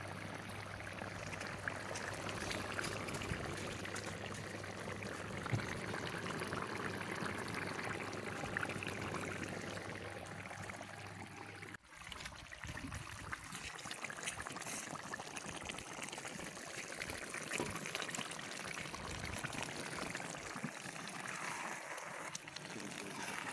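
Plov boiling in a cast-iron kazan over a wood fire: a steady bubbling of broth through the freshly laid rice, with fine crackling. The sound breaks off briefly near the middle.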